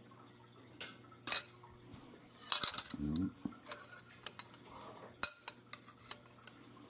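A metal soup spoon and chopsticks clinking and scraping against a ceramic soup bowl. There are a handful of sharp clinks, the loudest about two and a half and five seconds in, with quieter scrapes between.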